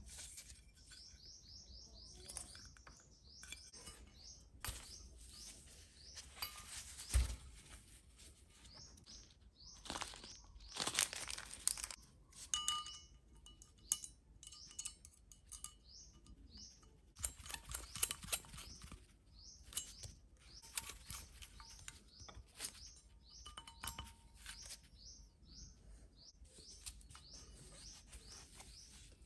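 Irregular clicks, taps and rustling of small parts being handled during hobby model assembly. A bird chirps a quick run of notes near the start.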